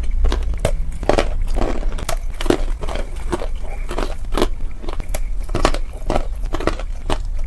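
Crunchy dried clay being bitten and chewed close to the microphone: irregular crisp crunches, a few each second, over a steady low hum.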